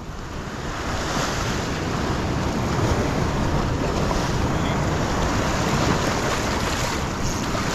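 Ocean swell surging and washing over a rock ledge, a steady rush of whitewater, with wind on the microphone.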